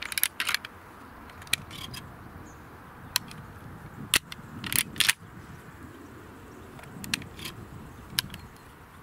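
Metallic clicks and rattles from handling an Impala Plus inertia-operated semi-automatic shotgun, scattered sharp clicks coming every second or so, with a quick cluster just after the start and another around the middle.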